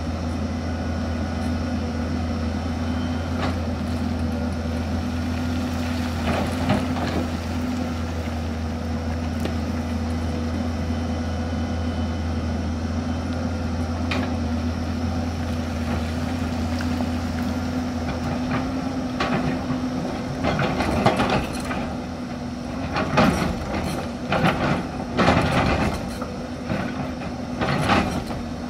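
Hyundai crawler excavator's diesel engine running steadily with a constant hum. From about two-thirds of the way in, the bucket scrapes and knocks against rocky soil in a string of irregular clanks.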